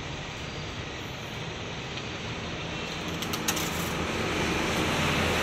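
Steady rushing noise with a low hum under it, growing slowly louder toward the end.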